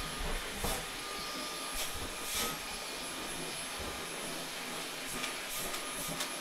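Dyson cordless stick vacuum running steadily with a pet-hair brush attachment, a steady hiss with a thin high whine, and a few brief rustles as the brush is drawn through the dog's fur.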